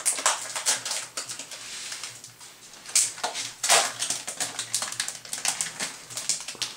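A package's wrapping being handled and pulled at to open it: irregular crinkling and rustling, with two louder crackles about three and three and a half seconds in.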